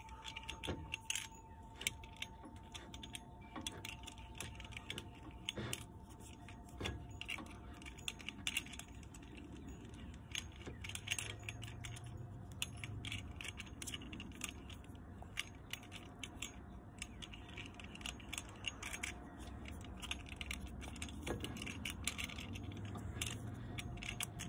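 Light, irregular metallic clicks and rattles from a toy cap-gun revolver being flipped and handled, with no caps going off.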